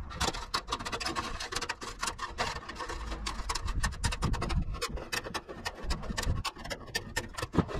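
Tin snips cutting off the excess wire mesh along a sieve frame's edge: a quick, irregular run of sharp clicks as the wires snap, with the mesh scraping and rattling.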